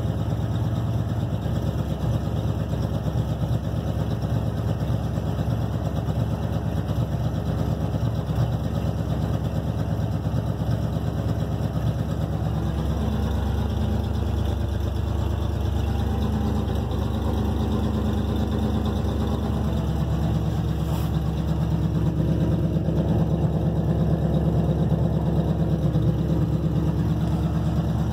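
1978 Chevrolet farm truck's engine idling steadily while warming up after a cold start, heard from inside the cab. The idle note changes about twelve seconds in and again near twenty seconds.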